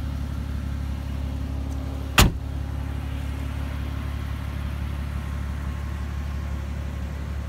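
2017 Mercedes-AMG G65's twin-turbo V12 idling with a steady low hum. A single sharp knock about two seconds in.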